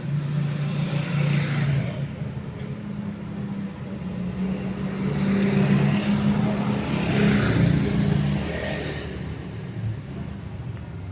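Motor vehicles running and passing, with a steady low engine hum and a few swells as vehicles go by.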